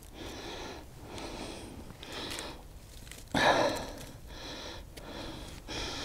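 A man breathing in and out close to the microphone, about one breath a second, with one louder breath a little past the middle.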